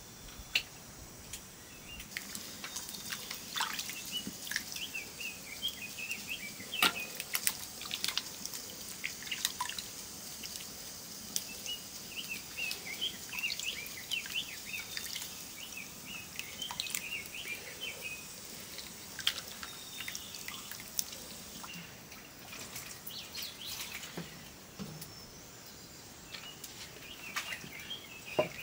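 Food frying in a pan: a steady sizzle with scattered pops and clicks, the sizzle dropping away about three-quarters of the way through. Small birds chirp repeatedly.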